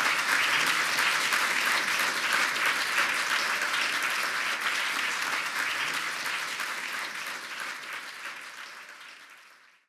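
Audience applauding, a steady clatter of many hands clapping that dies away over the last few seconds.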